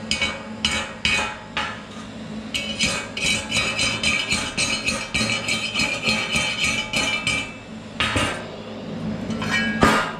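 Chipping hammer knocking slag off a stainless-rod stick weld on a steel workpiece. A few separate sharp strikes come first, then a quick even run of about five light taps a second, then two heavier knocks near the end.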